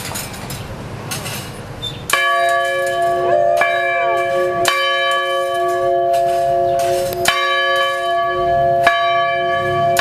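The 1886 schoolhouse bell, rung by pulling its rope. Its first stroke comes about two seconds in, followed by four more strokes at uneven intervals, each one ringing on into the next.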